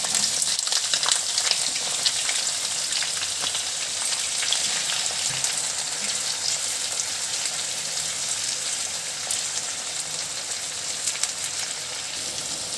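Onion slices sizzling as they fry in hot oil in a kadai. They are stirred with a slotted spatula that scrapes and ticks against the pan now and then. The sizzle is steady and eases a little toward the end.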